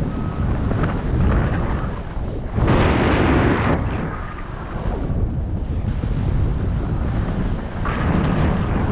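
Airflow from paraglider flight buffeting the microphone as a steady wind rush, with a stronger gust for about a second near the middle.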